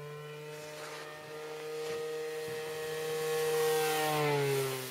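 Radio-controlled Seawind model seaplane's small engine buzzing steadily in flight, which the spectators take for a fuel (glow) motor. It grows louder as the plane comes past, then drops in pitch and fades near the end as it goes by.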